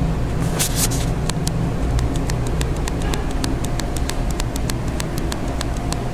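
Steady low rumble of room background noise with a faint steady hum, and many light clicks, roughly three to five a second.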